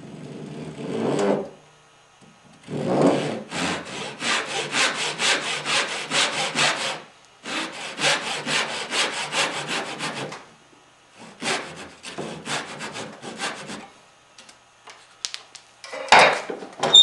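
Hand saw cutting dovetail tails in a wooden bracket support, in three runs of quick, even back-and-forth strokes, with a sharp knock near the end.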